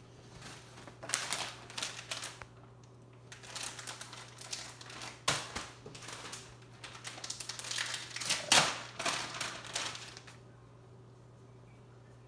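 Plastic mailer packaging and a stringer tank top rustling and crinkling in irregular bursts as the garment is taken out and handled, with a sharp snap about five seconds in. The rustling stops about ten seconds in.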